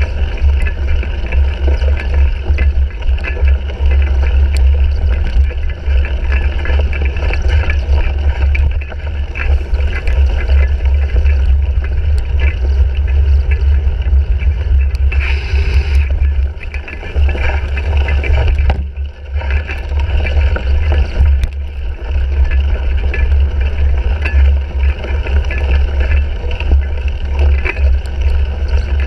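Wind rumbling and buffeting on a bike-mounted GoPro Hero 3 microphone while riding a cyclocross race, with many sharp clicks and knocks from the bike shaking over rough ground. The rumble briefly eases about two-thirds of the way through.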